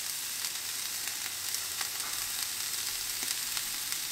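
Rye bread toasting in clarified butter (ghee) in a cast iron skillet over medium-low gas, sizzling steadily with a few faint pops.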